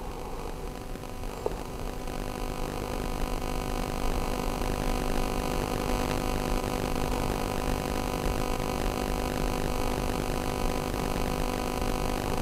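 Steady electrical hum with the whir of a cooling fan, growing louder over the first four seconds as an adjustable DC electronic load is turned up to 2 amps, then holding level.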